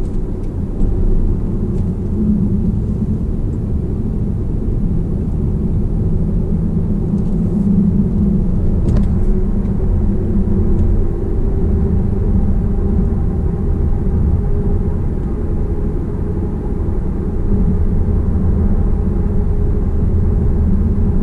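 Cabin noise of a car driving at road speed: a steady low rumble of tyres and engine, with a faint hum.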